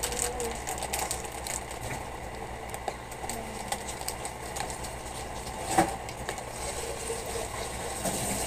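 Small plastic Lego bricks clicking and rattling as pieces are handled and pressed onto a model, with one sharper snap about six seconds in, over a steady background hum.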